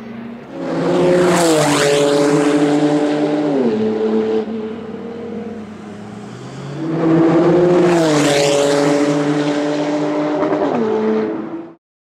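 Two race cars pass at speed on a track straight one after the other, about six seconds apart. Each engine note drops in pitch as the car goes by. The sound cuts off abruptly near the end.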